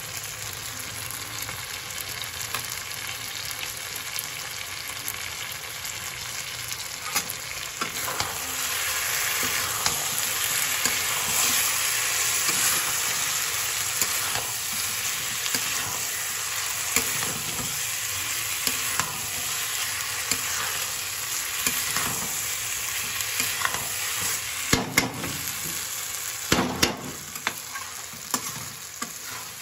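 Cauliflower, peas, onion and tomato sizzling in oil in a kadhai while a spatula stirs and scrapes them through the masala. The sizzle grows louder about a third of the way in, and a few sharp knocks of the spatula against the pan come near the end.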